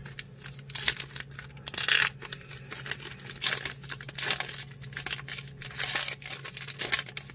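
Foil trading-card pack wrapper crinkling and tearing as it is ripped open by hand, a dense run of crackles and rips.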